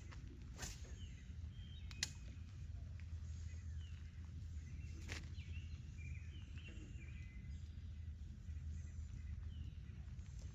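Small birds chirping in short scattered calls over a steady low rumble, with three sharp clicks, the loudest about two seconds in.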